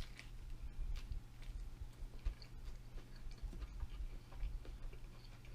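Close-miked chewing of a shrimp spring roll in rice paper with vermicelli noodles and lettuce: soft, irregular wet mouth clicks and low thumps of the jaw working.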